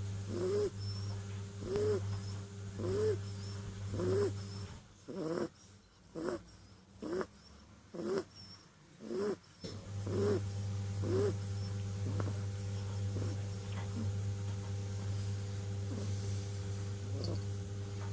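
Kitten snoring, each breath giving a short squeaky note that rises and falls, about once a second, growing fainter over the second half. A steady low hum runs underneath and stops for a few seconds in the middle.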